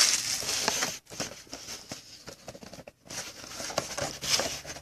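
Crinkling and rustling of packaging as a sealed trading-card hobby box is worked open by hand, loudest in the first second, then quieter scattered taps and scratches, with the rustling picking up again near the end.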